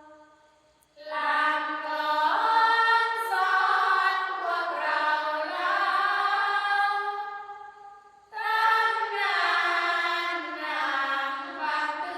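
Unaccompanied group chanting of a sorapanya verse, the Thai Buddhist devotional chant. It enters about a second in after a pause, sings one long phrase, breaks briefly at about eight seconds, and starts the next phrase.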